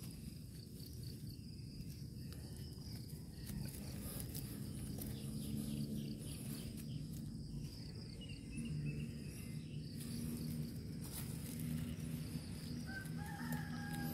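Faint rural field ambience: insects buzz steadily over a low hum, and a distant rooster crows once near the end, a long, slightly falling call.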